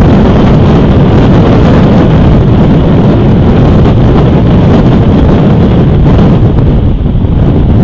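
Strong wind buffeting an outdoor camera's microphone: loud, steady rumbling noise with no let-up.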